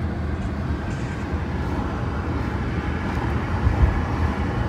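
Road noise inside a moving car's cabin: a steady low rumble of tyres on the road surface, with one low thump about four seconds in.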